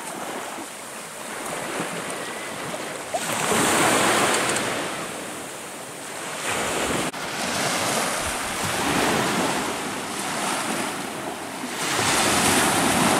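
Surf breaking and washing up a sandy beach, swelling loud every few seconds, with wind buffeting the microphone.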